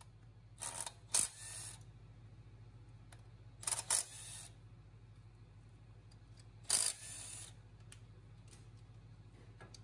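Milwaukee M12 FUEL 3/8-inch cordless right angle impact wrench firing in four short bursts, each a sharp hit with a brief whirr after it, as it breaks Loctited flex plate bolts free. A faint steady low hum sits underneath.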